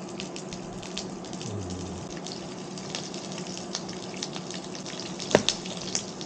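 Food sizzling in a pan on an induction cooktop: a steady crackle. About five seconds in, a knife knocks sharply against a cutting board.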